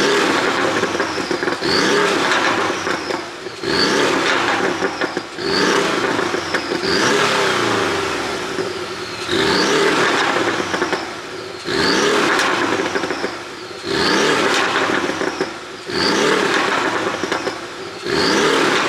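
Porsche 718 Boxster S's turbocharged 2.5-litre flat-four revved again and again, about every two seconds, each rev falling away into exhaust popping and crackling on the overrun from an ECU tune set up for exhaust pops.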